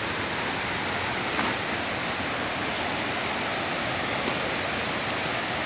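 Rushing creek water: a steady, even hiss with no change in level, with a few faint ticks on top.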